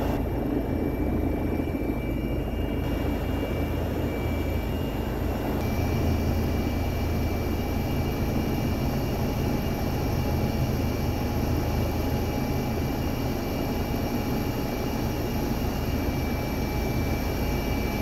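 Police helicopter's engine and rotor noise heard from on board: a steady, even rumble with a thin, steady high whine over it.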